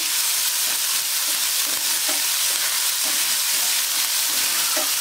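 Crushed ginger and garlic sizzling steadily in hot mustard oil with cumin, mustard and fennel seeds while a spatula stirs and scrapes them around the pan.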